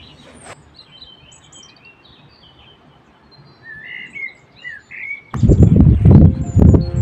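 Small birds singing, with short high chirps and trills over a quiet background. About five seconds in, much louder background music comes in.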